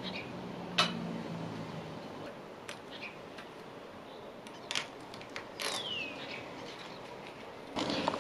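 Sharp plastic clicks and knocks as the dome camera is handled and fitted onto its wall bracket, the loudest about a second in and more around the middle and near the end. Outdoor ambience with a short falling whistle-like call near the middle and a low drone that fades out in the first two seconds.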